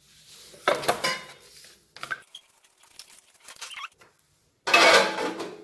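Kitchen handling noise: a wooden rolling pin and a plastic cutting board knocking and clattering on a countertop. There are two louder clattering bursts, one about a second in and one near the end, with a few light knocks between them.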